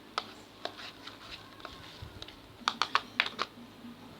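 Sharp clicks and taps from stirring thickening slime in a container, with a quick cluster of five or so clicks near the end as the mixture starts to clump.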